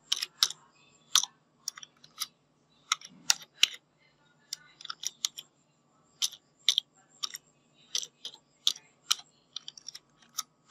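Computer keyboard typing: single keystrokes at an uneven pace, about two a second with short pauses, as a password is typed in.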